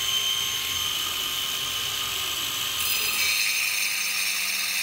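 Brushless twin-blade wall chaser running at speed, a steady high whine at about 6,400 rpm unloaded. About three seconds in the sound changes and a low hum joins as the blades start cutting into brick, pulling the speed down.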